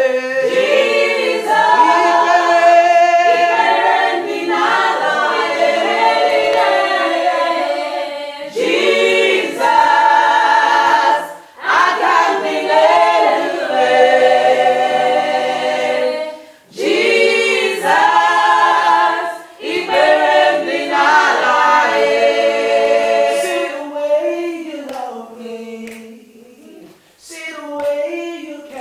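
A small group of men and women singing a worship song a cappella, with no instruments, in long held phrases broken by short pauses for breath. The singing turns softer near the end.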